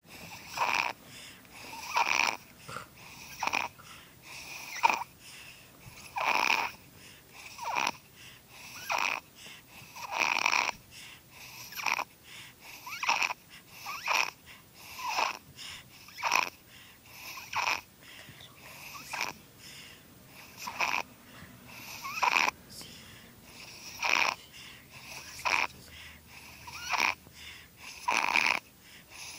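A 7-month-old baby snoring in her sleep: a short snore with each breath, repeating steadily roughly every second and a half.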